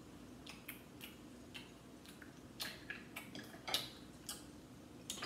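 Faint, irregular sharp cracks and clicks of snow crab shell being snapped and broken open by hand, coming closer together in the second half.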